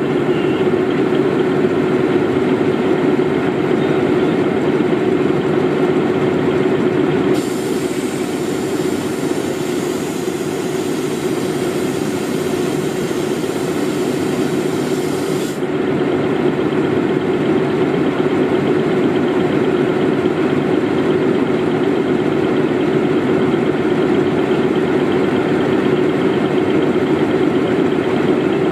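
Diesel train engine idling steadily at the platform, a constant low hum with no change in speed.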